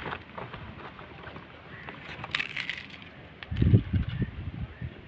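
Wind buffeting the microphone in gusts, with low rumbling bursts, the loudest about three and a half seconds in. A short hissing rustle comes just before it.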